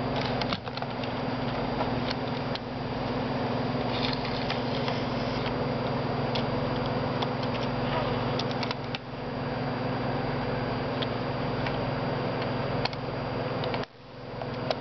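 Hand-crank emergency radio's speaker giving out steady static hiss with a low hum while being tuned between stations, broken by scattered clicks and crackles. The hiss cuts out briefly near the end.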